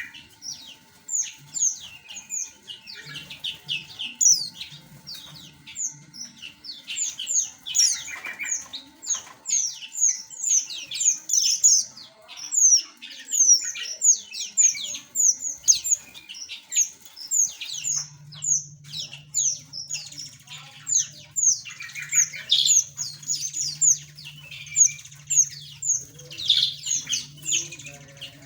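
A flock of small aviary birds chirping continuously, a dense chorus of short, high, down-sweeping chirps with the odd harsher squawk. A low steady hum joins about two-thirds of the way through.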